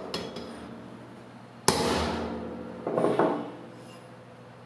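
A hammer strikes a steel bearing setter, driving a new bearing onto a Campagnolo Ultra-Torque crank spindle. One hard metallic blow about a second and a half in rings and dies away, and a lighter knock or two follow near three seconds in.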